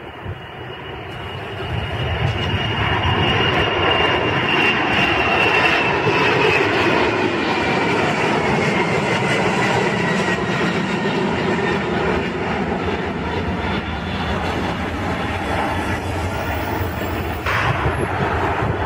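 Twin turbofan engines of a Boeing 767 at takeoff power as it climbs out: a steady jet roar that builds over the first few seconds, with a thin high whine that slowly falls in pitch as the aircraft passes.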